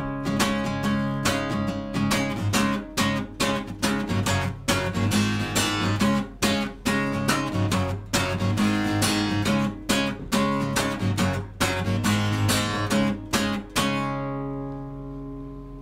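Strummed acoustic guitar music. A final chord about 14 seconds in rings on and slowly fades.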